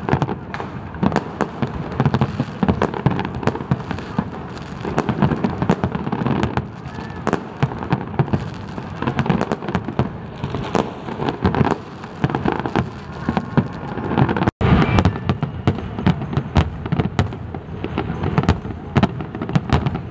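Large aerial fireworks display: a dense, continuous run of sharp bangs from bursting shells in quick succession. The sound cuts out for an instant about three-quarters of the way through.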